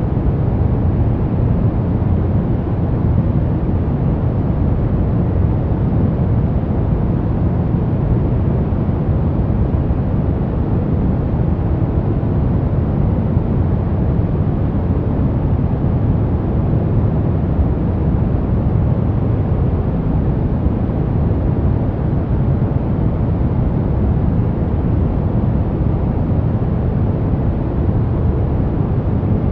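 Continuous generated noise of the kind played for sleep and concentration: a steady, deep rushing hiss that never changes, with most of its weight in the bass and only soft treble, nearer brown noise than true white noise.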